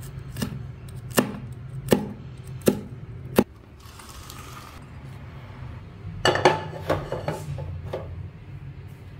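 Chef's knife chopping green chillies on a plastic cutting board: five sharp chops, about one every three-quarters of a second. After a pause, a short burst of clattering about six seconds in.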